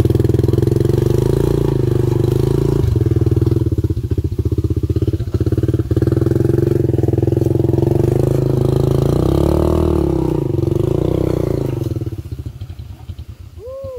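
A vehicle engine running steadily close by, its pitch wavering up and down about nine to eleven seconds in before it fades away about twelve seconds in.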